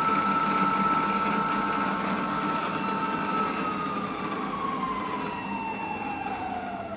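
Small mill-drill spindle and motor running at its top speed of 1800 RPM with a steady whine. About three and a half seconds in, the whine starts to fall smoothly in pitch and fade as the spindle slows down.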